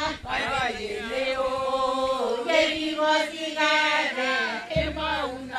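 A group of women singing together in a chant-like song, with no accompaniment to be seen.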